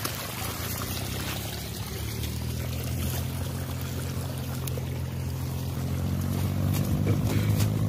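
Water pouring and running over a muddy paddy-field bund, over a steady low engine hum that grows louder near the end.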